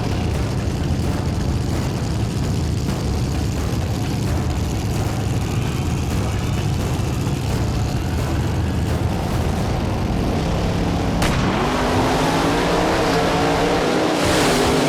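Drag-race car engines running with a heavy, steady rumble. About eleven seconds in there is a sharp crack, and an engine revs up with a rising pitch.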